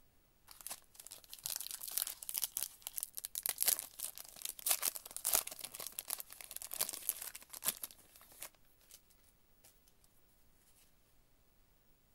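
Foil wrapper of a Prizm football card pack being torn open and crinkled by hand: a dense crackle of tearing and crumpling that lasts about eight seconds, then stops, leaving only faint handling ticks as the cards are slid out.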